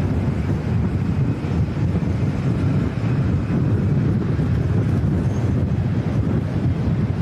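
Strong, gusty wind buffeting the microphone: a steady, fluttering low rumble.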